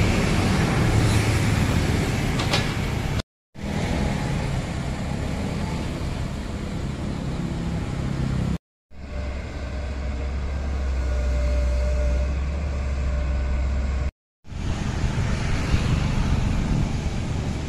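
Diesel engines of working hydraulic excavators, a Sumitomo and then Hitachis, running in a series of short clips. The sound cuts abruptly to silence about three seconds in, around the middle and again about three quarters of the way through. One clip has a steady deep engine drone.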